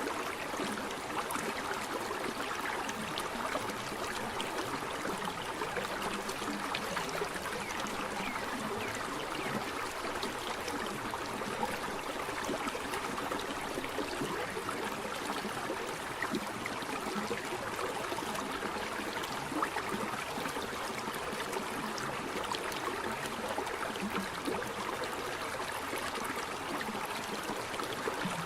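A waterfall's falling water rushing and splashing in an even, steady hiss, with little deep rumble.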